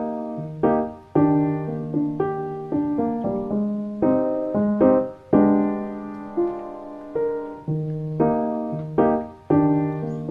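Background piano music: notes and chords struck one after another, each fading away.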